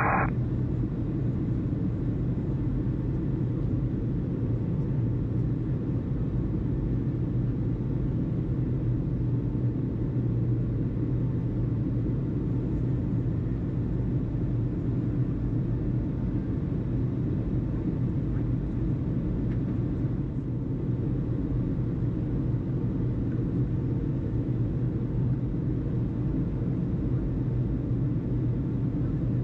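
Steady low rumble with a hum.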